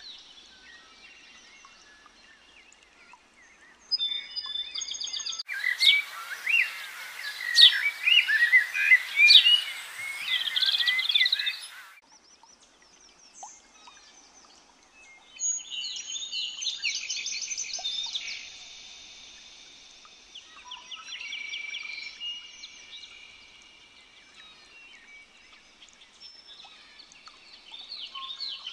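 Wild birds singing and chirping, several at once, with repeated trills. A louder, denser burst of chirping starts sharply about five seconds in and stops just as sharply about twelve seconds in.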